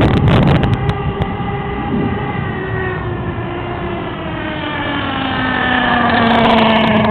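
Small nitro engine of a radio-controlled car running, its pitch sinking and then rising again as the throttle changes. A loud rush of noise fills the first second.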